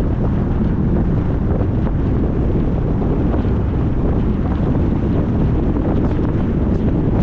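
Wind buffeting the microphone: a steady, loud low rumble of noise without any pitch or rhythm.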